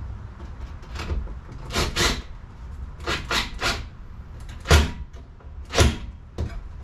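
Cordless drill-driver driving screws through perforated galvanized strap into a plywood wall in a series of short trigger bursts, about eight of them, the two loudest a little past the middle. The screws are being run in tight to clamp the strap.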